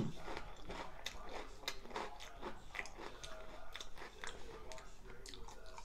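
A person chewing a jalapeño stuffed with cream cheese and coated in crushed Takis chips: many quick, irregular crunches from the mouth.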